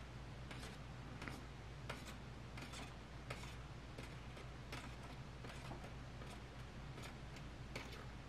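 Faint light clicks and ticks, irregular and roughly one or two a second, as thin copper beading wire is wrapped round a beaded flower stem by hand, over a faint steady low hum.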